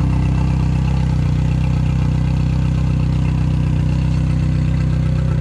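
Yamaha four-stroke outboard motor, cowling off, idling steadily.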